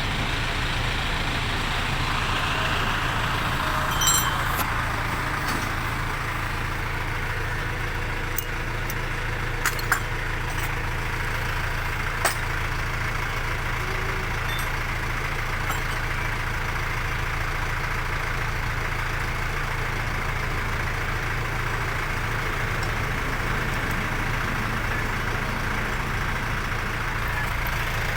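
Vehicle engine idling steadily with a constant low hum, with a few light sharp clicks in the first half.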